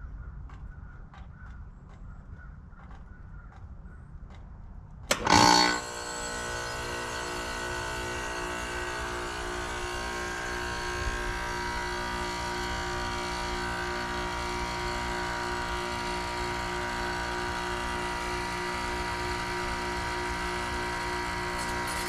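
Goodman heat pump outdoor unit in defrost mode: about five seconds in it comes on with a sudden loud whoosh, then runs steadily with a hum and a high whine while the outdoor fan stays stopped.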